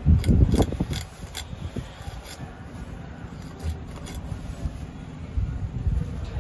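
Fish being cut and scraped against a curved fish-cutting blade (aruvamanai) on a wooden board: scattered sharp clicks and scraping strokes. A louder low rumbling handling noise comes in the first second.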